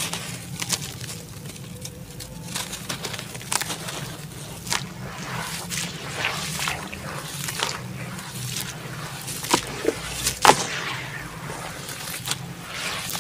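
Hands sloshing and squeezing crumbled red dirt in a plastic basin of muddy water, with irregular wet splashes and squishes as the dirt is worked into a paste. The sharpest splashes come about ten seconds in.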